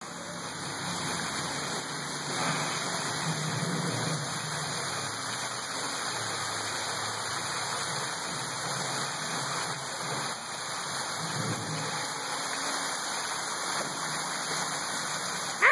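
Water from artificial waterfalls pouring and splashing down fake rockwork, a steady rushing hiss. A faint low rumble swells twice beneath it.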